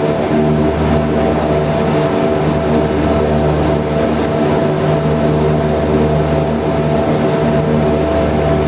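BAe Jetstream 31's Garrett TPE331 turboprop engines running, heard inside the cabin as the aircraft taxis onto the runway. It is a steady hum carrying several pitched tones.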